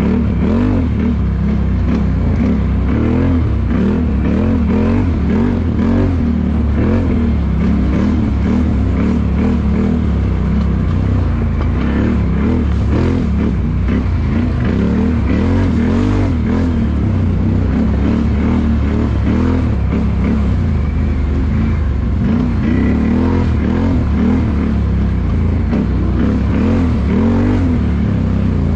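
ATV engine heard close up, running throughout with its pitch rising and falling again and again as the throttle is opened and closed.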